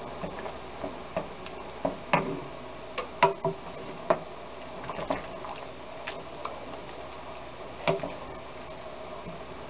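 A spoon stirring a cornstarch-thickened red wine sauce in a skillet, knocking and scraping against the pan in irregular clicks, over a steady low hiss.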